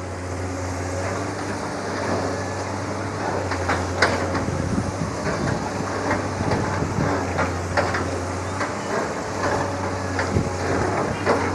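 Excavator's diesel engine running steadily, with irregular metallic clanks and knocks from the working machine as it shapes the slope of a freshly built earth levee.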